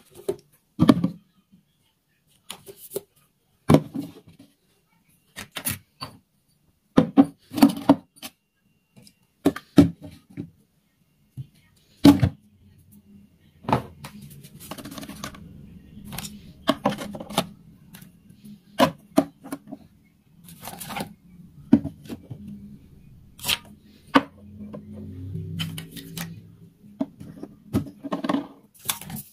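Household objects being handled and set down: a string of irregular clicks, taps and knocks, joined about halfway through by a low steady hum.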